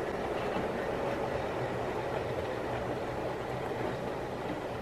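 Wrenn OO gauge West Country model locomotive and its rake of coaches running on the layout track: a steady whirring rumble of motor and wheels on rail, easing off slightly toward the end as the train is slowed to a stop.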